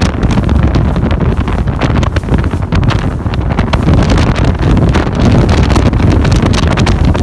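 Heavy wind buffeting on the microphone aboard a RIB speedboat running at high speed, with the boat's outboard engine and rushing water underneath, steady throughout.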